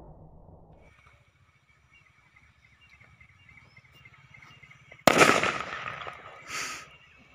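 A firecracker packed inside an apple goes off with a sudden loud bang about five seconds in, blowing the apple apart. The noise dies away over about a second, and a second, shorter burst follows a little over a second later.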